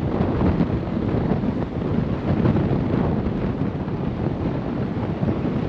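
Strong wind buffeting the microphone: a steady, rumbling rush of noise.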